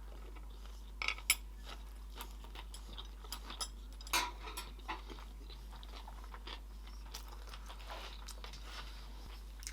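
Close-up eating sounds of a crunchy sushi roll being bitten and chewed: crisp crunches, loudest in the first few seconds, tapering to softer chewing.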